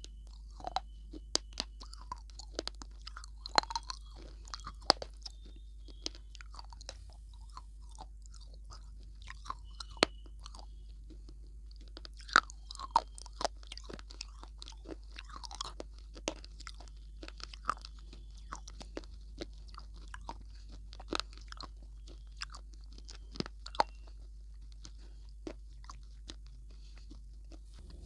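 Close-miked chewing of a hard, crunchy food: irregular sharp crunches come in clusters, with quieter mouth-chewing between them.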